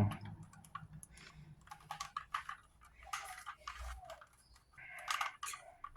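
Plastic Rubik's Cube being twisted by hand: faint, irregular clicks and short scraping turns, with a couple of longer turns about three and five seconds in.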